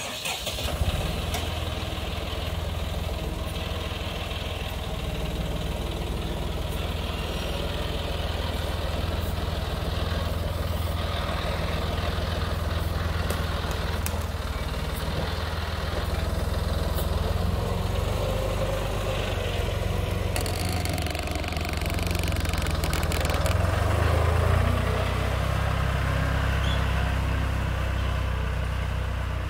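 John Deere farm tractor's engine running steadily as the tractor lifts and carries off a load of lumber. It swells briefly toward the end.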